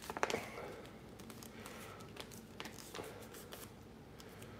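Faint rustling and crinkling of a paper receipt being folded by hand, with a few light clicks, the loudest just after the start.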